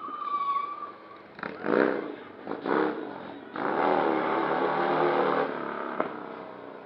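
Heavy cruiser motorcycle engine revving in two short hard blips, then held at high revs for about two seconds before easing off.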